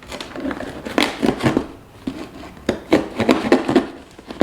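A sealed parcel being opened by hand: irregular crinkling and rustling of packaging with short clicks.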